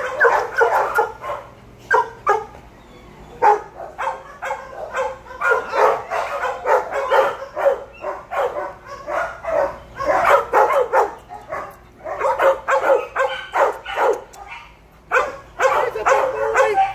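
Shelter dogs barking in their chain-link kennel runs, several at once, in bursts with short lulls between.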